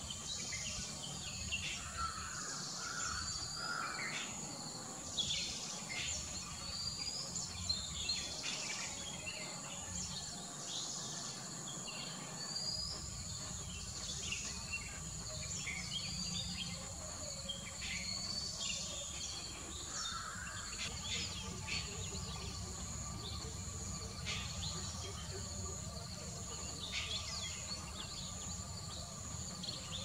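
Outdoor birdsong: many short chirps and brief whistled notes from birds, scattered irregularly, over a steady high-pitched insect drone.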